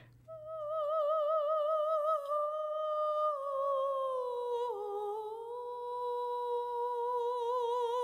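A single high wordless voice humming a slow melody with wide vibrato: a long held note slides down to a lower one about halfway through, and that note is held again.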